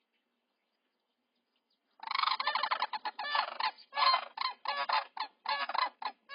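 Adult sandhill cranes calling loudly, starting about two seconds in: a run of rolling, rapidly repeated calls that carries on to the end.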